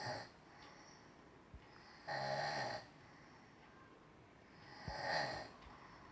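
A woman snoring in her sleep: a snore fades just at the start, then two full snores follow about two and a half seconds apart, each lasting under a second.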